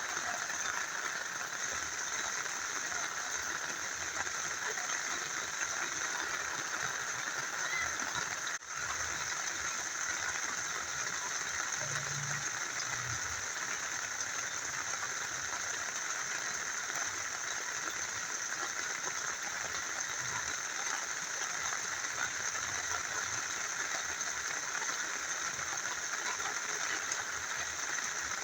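Steady rushing of a small river flowing, mixed with falling rain, with a momentary dropout about nine seconds in.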